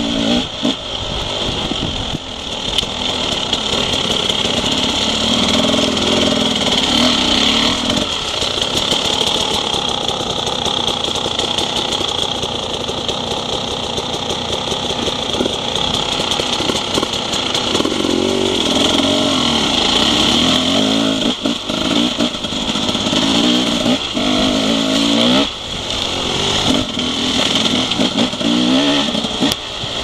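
Enduro motorcycle engine running under load as the bike rides through long grass, its revs rising and falling with the throttle, with a few brief drops in engine noise.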